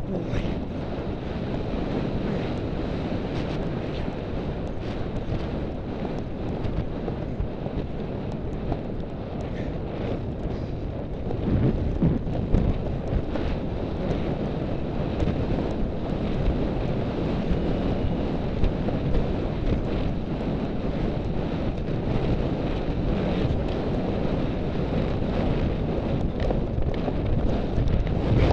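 Wind rushing over the microphone of a rider's camera as the horse gallops cross-country: a steady low buffeting that gets a little louder about twelve seconds in.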